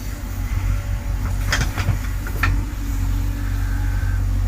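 Diesel engine of a JCB 3DX backhoe loader running steadily, with a few sharp knocks, likely metal on metal, from about a second and a half to two and a half seconds in.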